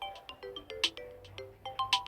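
Samsung Galaxy A01 Core stock ringtone playing: a short electronic melody of quick notes over a repeating pattern, with a bright sharp hit about once a second.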